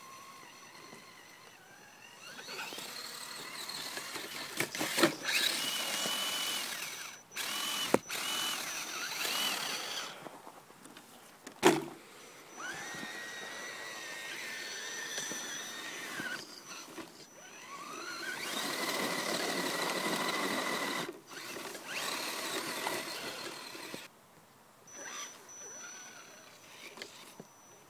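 Stock Axial SCX10 Trail Honcho RC crawler's brushed electric motor and gears whining in repeated bursts of throttle as it crawls through snow, the whine rising in pitch as it speeds up and dropping away between bursts. Two sharp knocks cut in about a third of the way through.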